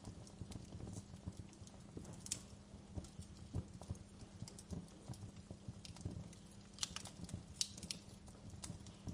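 Wood fire crackling: a steady run of small irregular pops and snaps over a low rumble, with a few sharper snaps about two seconds in and again around seven seconds.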